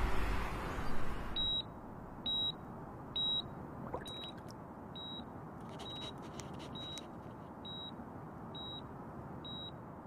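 Patient monitor beeping steadily, a short high beep a little more than once a second. Before the beeps, a loud rushing noise cuts off sharply about a second and a half in.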